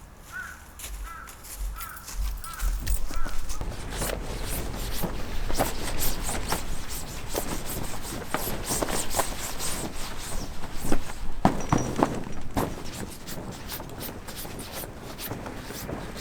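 A crow cawing about five times in quick succession. About four seconds in, a long run of close crunching, rustling and knocking follows.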